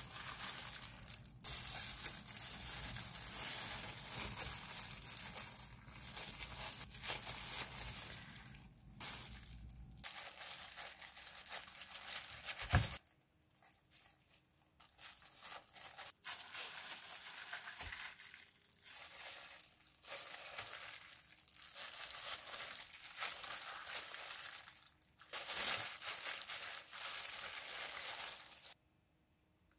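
Disposable plastic gloves crinkling and rustling while hands press and roll wet aged-kimchi leaves around rice, coming in bursts with short pauses. A single knock sounds about 13 seconds in.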